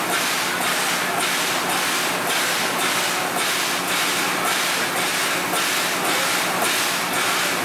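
Steam locomotive standing at a platform, blowing off steam in a loud, steady hiss that pulses at an even pace a little under twice a second, over a steady low hum.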